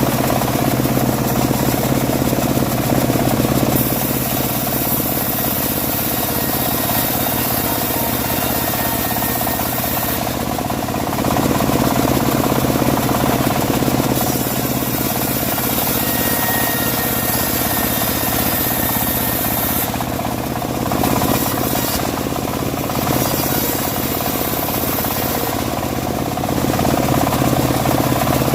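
Home-built bandsaw mill running steadily while sawing dry teak: a constant machine drone under a hiss that grows and fades over stretches of a few seconds.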